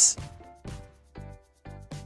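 Background music: a light instrumental with separate pitched notes about twice a second.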